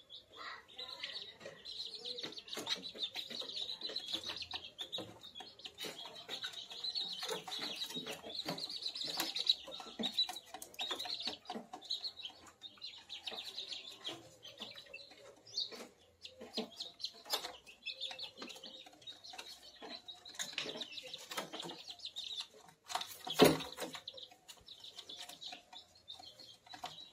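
Month-old kampung chicks peeping almost without pause, high and busy, with scattered clicks among them. One loud sharp knock comes about three-quarters of the way through.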